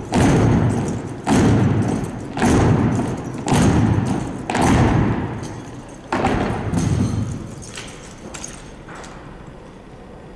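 A drill team's unison foot stomps on a hardwood gym floor while marching, each a loud echoing thud about once every second or so. There are six strong ones, then two fainter ones about eight and nine seconds in.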